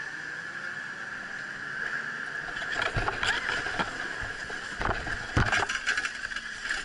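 Boarding a chairlift: a steady high whine, with a cluster of knocks and clatters between about three and five and a half seconds in as skis shuffle across the loading area and the chair swings in and is sat on.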